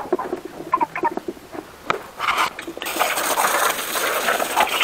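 A few scattered knocks and clatters, then from about two seconds in a loud, steady rush of water.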